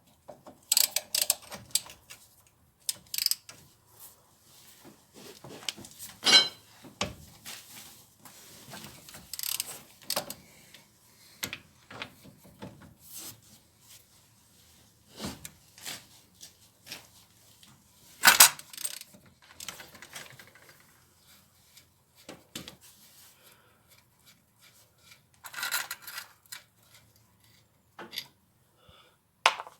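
Hand tools working on a car's brake caliper bolts: scattered metallic clicks, clinks and scrapes, with a few louder clanks.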